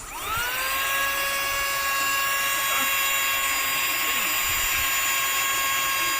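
Small handheld mini vacuum cleaner switched on: its motor spins up with a quickly rising whine, then runs steadily with a high whine over a loud airy hiss.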